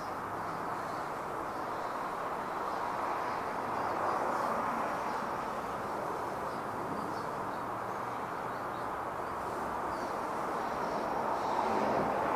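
Steady hum of road traffic, swelling about four seconds in and again near the end as vehicles pass, with faint high bird chirps.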